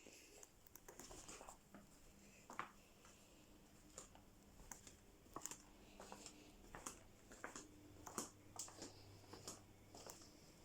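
Near silence with faint, scattered clicks and light rustles of things being handled; the vacuum cleaner is not running.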